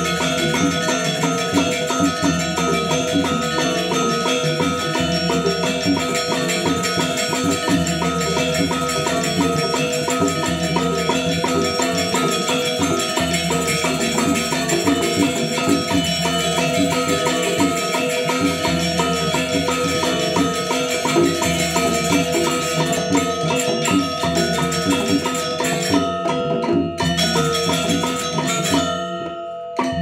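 Balinese gamelan ensemble playing dance accompaniment: rapid, interlocking figuration on bronze metallophones over a recurring low pulse, continuous and loud, thinning briefly near the end.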